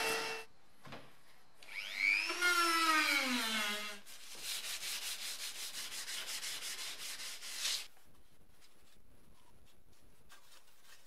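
Hand sanding of cured body filler on a car's steel body: quick scratchy back-and-forth strokes, about five a second, for a few seconds. Before the strokes, a louder squeal rises and then falls in pitch over about two seconds, and at the very start a machine hum cuts off.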